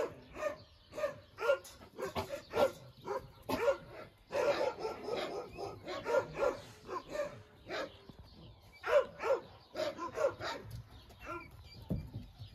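Young pups yapping and barking in short, high calls, about two or three a second. The calls come thickest about four to seven seconds in and thin out near the end.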